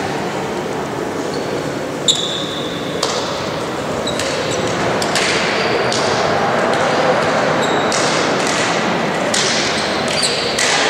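Echoing sports-hall hubbub of many people moving and talking at once, with several short high sneaker squeaks on the court floor.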